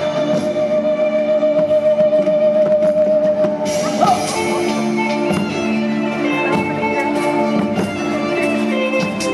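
Wooden flute holding one long wavering note, then bending into a slow melody about four seconds in. Underneath are sustained string-like backing chords and occasional drum hits.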